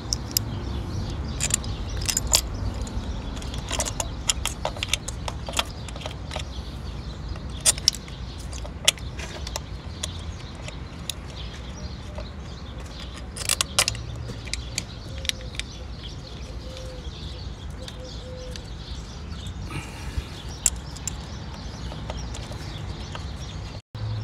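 Scattered light metallic clicks and clinks of ignition coils and their small bolts being set into place by hand on an engine, over a steady low rumble.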